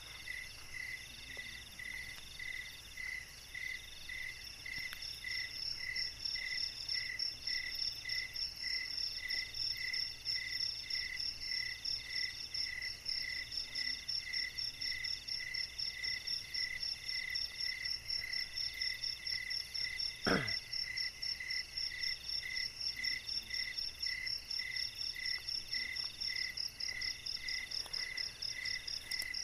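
Night chorus of crickets and other calling insects: a chirp repeating about twice a second, a slower pulsing call, and a fast high trill that grows louder after about five seconds. About twenty seconds in, one brief sharp sound falling in pitch cuts through once.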